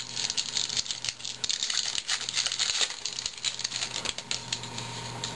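2011 Topps baseball cards being flipped through by hand and laid down on a table: a quick, irregular run of light flicks and clicks of cardstock, with some crinkling.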